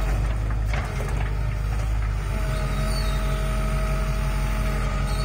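Hitachi Zaxis 135US excavator's diesel engine running steadily, with a brief clatter about a second in. A steady higher whine joins about two seconds in, typical of the hydraulics working as the bucket moves over the truck.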